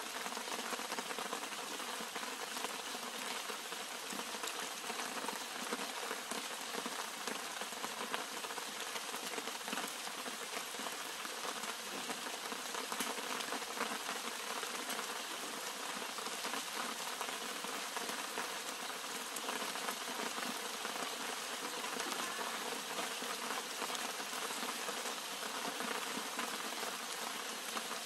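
Steady rain falling on the leaves and flower heads of a garden shrub: a dense, even patter of many small drops that does not let up.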